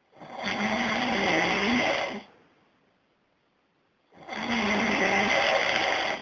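A man snoring loudly: two long snores of about two seconds each, four seconds apart, each with a wavering rasping buzz.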